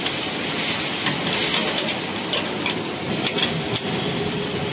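Wrench tightening bolts on the steel side access door of a gyratory screen: a few short, separate metal clicks over steady background machinery noise.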